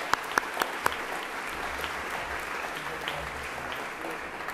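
Audience applauding, with a few sharp, loud claps close to the microphone in the first second over the steady clapping of the room.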